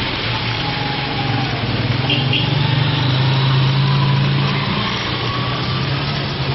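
Small petrol engine of a pressure washer running steadily under a steady hiss, a little louder from about two seconds in.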